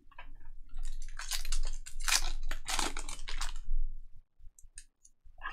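A trading card pack's wrapper being torn open and crinkled by hand, a dense run of crackling and rustling that stops just before 4 seconds in, followed by a few faint ticks as the cards are handled.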